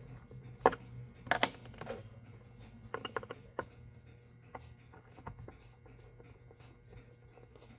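Small metal watchmaker's tools clicking and tapping on a pocket watch movement: a sharp click about a second in, a quick pair a moment later, a cluster around three seconds and lighter ticks after, over a steady low hum.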